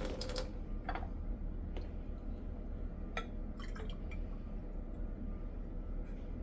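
Sugar-water nectar pouring into a glass hummingbird feeder stops about half a second in, then a few scattered drips and small clicks follow.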